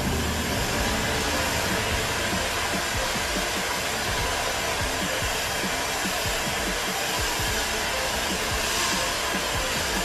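Electric heat gun running steadily, a constant rush of hot air blown onto a sheet of Worbla thermoplastic to soften it.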